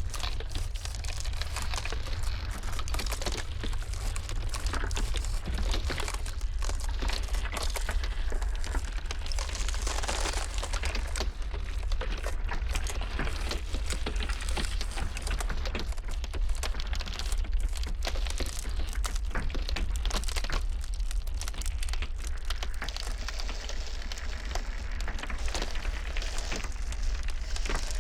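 Ice cracking and crackling in dense, irregular snaps, over a steady deep rumble of blizzard wind.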